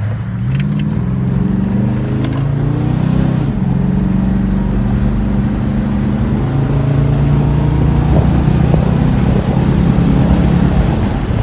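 1996 Chevrolet Impala SS's 5.7-litre LT1 V8 pulling hard under full acceleration. The engine note climbs, drops suddenly about three and a half seconds in as the transmission shifts up, then runs on steadily under load. It pulls without any hesitation or sputter.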